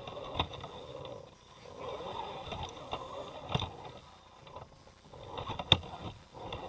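Electric radio-controlled rock crawler truck working over rocks: its motor and gears whine in uneven pulses as the throttle comes on and off, with several sharp knocks of the truck hitting rock, the loudest near the end.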